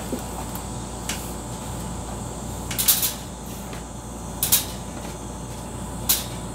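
Egg trays knocking and clacking as they are handled and set down: four short, sharp clacks a second or two apart, over a steady background hum.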